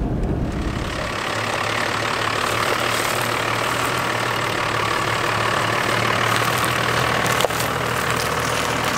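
Toyota 60 series Land Cruiser's 12H-T turbo-diesel engine running steadily on a dirt track, with a single sharp click about seven and a half seconds in.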